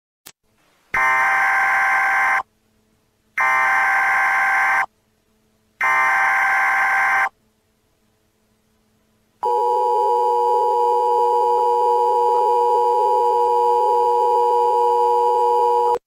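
Emergency Alert System tones: three data bursts of about a second and a half each, spaced about a second apart, then a pause. About nine seconds in, the steady two-tone EAS attention signal starts and holds without a break.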